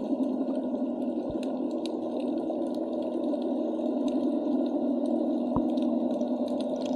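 Underwater ambience picked up by a camera in its waterproof housing: a steady low hum with scattered faint clicks.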